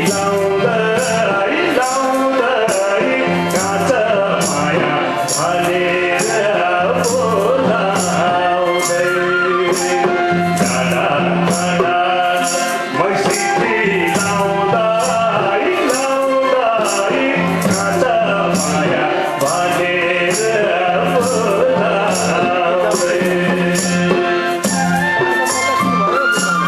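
Nepali folk song performed live: a man singing to harmonium accompaniment, with bansuri flute and a steady, quick percussion beat.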